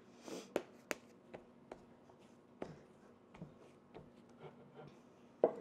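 Faint scattered taps and soft rubbing as oily hands handle and press a ball of pita dough flat on a mat on a wooden cutting board, with a louder tap near the end.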